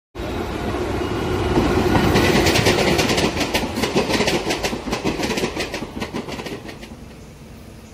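Passenger train coaches rolling past, wheels clicking rapidly over the rail joints above a steady rumble, fading away over the last two seconds.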